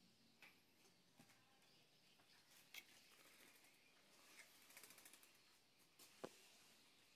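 Near silence, with a few faint clicks and a short quick run of ticks about two-thirds of the way in, from a steel trowel working wet cement.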